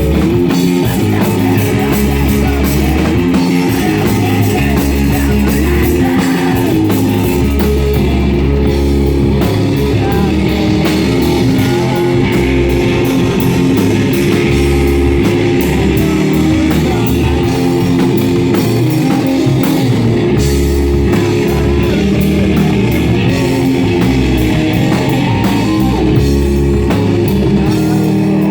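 Rock band playing live: electric guitar over a driving drum kit with steady low bass notes.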